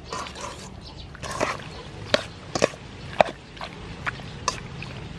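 A metal spoon stirring octopus in a thick chili-sauce marinade, in a stainless steel bowl: wet squelching, and a series of sharp clinks of spoon against bowl, about six of them between two and four and a half seconds in.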